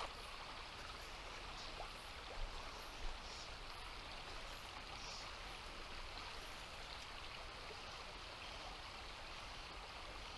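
Shallow river water running steadily over a riffle, with two faint taps about two and a half and three seconds in.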